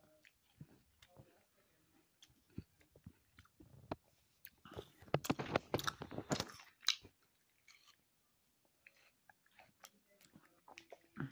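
A person chewing and crunching on fruit close to the microphone. Small scattered mouth clicks come throughout, with a dense run of crunchy bites about four to seven seconds in, the loudest part.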